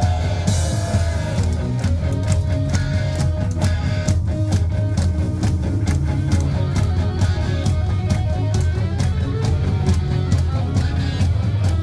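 Live punk rock band playing: electric guitars, bass and drum kit with a steady, even beat.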